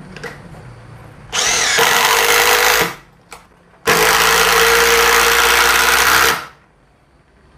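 Ryobi Kyocera BID10XR 18 V brushless impact driver running in two bursts, hammering as it drives a long screw into hard wood. The first burst starts about a second and a half in and speeds up at its start; the second runs about two and a half seconds and stops suddenly.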